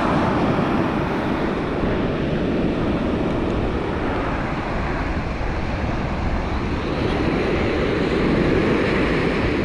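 Steady wind rumble on the microphone mixed with the wash of surf breaking on the beach.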